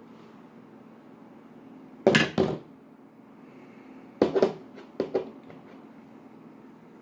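Slime being handled: three short clusters of squishing and clicking, about two seconds in, just after four seconds and again about five seconds in.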